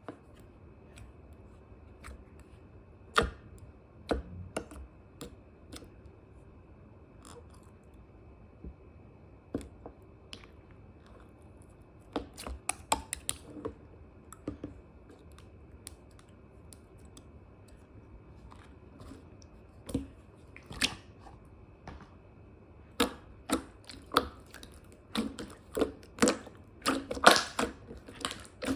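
Scattered small clicks, crackles and squishy handling noises close to the microphone, sparse at first and much busier in the last few seconds, over a faint steady high whine.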